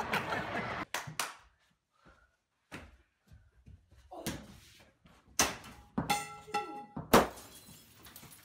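A string of thuds in a small room, from a small basketball hitting the walls and the concrete floor. A couple of the bounces ring with a short hollow ping, and the loudest thud comes about seven seconds in.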